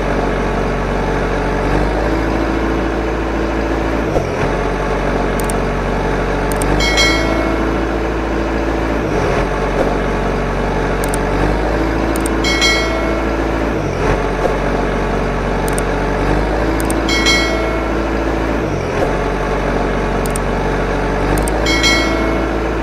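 Recorded truck engine sound playing in a loop. A steady engine rumble rises in pitch and then falls back, and the same cycle repeats about every five seconds.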